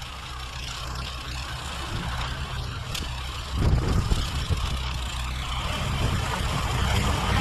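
John Deere 1032 two-stage snowblower's engine running steadily under load in deep snow, getting louder and noisier from about three and a half seconds in.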